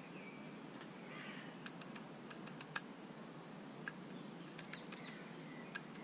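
Great spotted woodpecker pecking at peanuts through a wire-mesh feeder: sharp irregular taps of its beak on the mesh, a quick run of about seven and then a few scattered ones. A few faint bird chirps can be heard behind.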